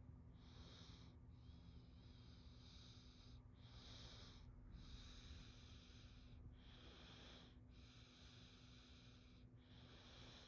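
A young child's slow, even breathing, faint and close up: about eight soft breaths in a row, each lasting about a second with short pauses between.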